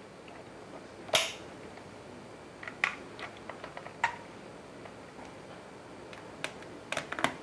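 RJ45 plugs clicking into the jacks of an NS-468 network cable tester, with light plastic handling between: single sharp clicks about a second in, at about three and four seconds, and again past six seconds, then several quick clicks near the end as the tester is handled and switched.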